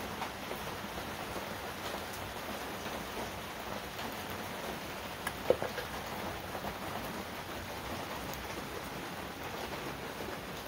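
A steady hiss with a few faint clicks and one sharper click about five and a half seconds in, from a pick working an old plastic stator wiring connector loose.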